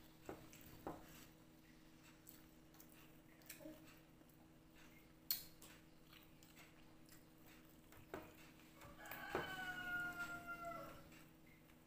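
Faint clicks and taps of eating by hand from a plate, with one sharper click about five seconds in. About nine seconds in, a rooster crows once: a drawn-out call of about two seconds that falls slightly at the end.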